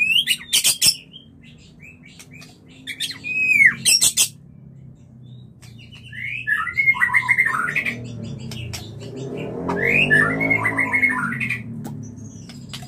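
Male white-rumped shama giving its breeding-season calls: sharp clicks, short falling whistles and two fast scratchy chirp runs. A low hum sits underneath, swelling in the second half.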